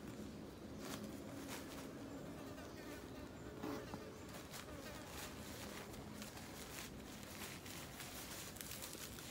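A flying insect buzzing, its hum wavering in pitch, with scattered faint ticks and rustles.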